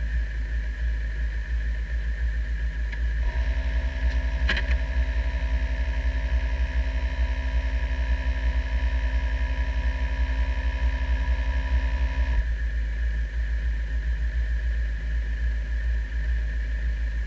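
Radical race car engine idling steadily while the car sits stationary. A steady whine joins in from about three seconds to twelve seconds in, and there is a single sharp click about four and a half seconds in.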